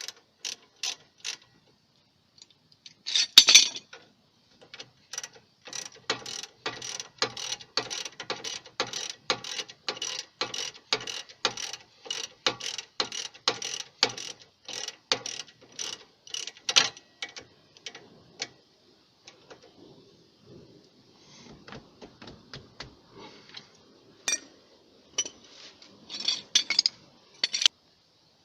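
Ratchet wrench with a 15mm socket tightening the rear brake caliper bolt: sharp clicks about two a second for over ten seconds, a quieter pause, then a few more clicks near the end.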